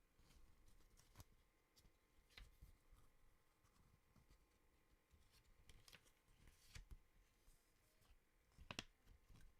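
Near silence with a few faint paper rustles and light taps as the pages of a Blu-ray booklet are turned and handled; the most distinct comes near the end.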